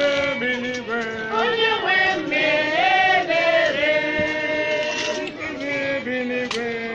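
A group of voices singing a chant together, several pitches sounding at once.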